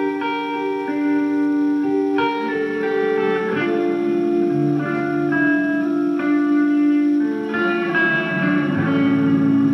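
Music played back through Q Acoustics 2010i bookshelf speakers and a Microlab H-220 subwoofer, picked up in the room by a camera's microphone. Several ringing notes sound at once, and the chord changes every second or so.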